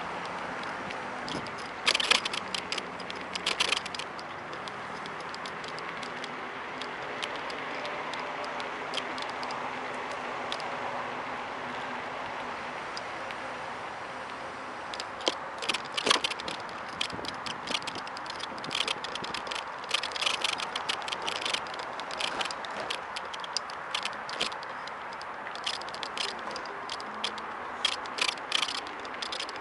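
Kugoo V1 Plus in motion: a steady hum of riding noise, with bursts of quick rattling, creaking clicks from the handlebar phone holder, heaviest in the second half.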